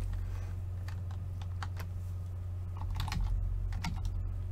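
Typing on a computer keyboard: irregular key clicks, with a quicker run of keystrokes about three seconds in, over a steady low hum.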